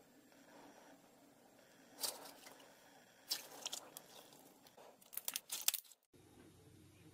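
Thick, glossy slime squeezed and pressed by hand, giving three bursts of quick crackling pops about two, three and five seconds in. It stops suddenly near the end, and a faint steady hum follows.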